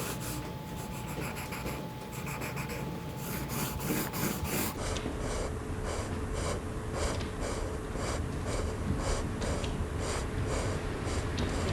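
Hand work on plastic vinyl sheet: repeated rubbing strokes, about two a second, with a change to a different stroke sound about five seconds in.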